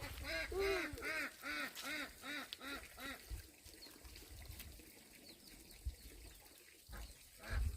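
Domestic poultry calling: a quick run of about ten short calls in the first three seconds, then dying away, with a low thump just before the end.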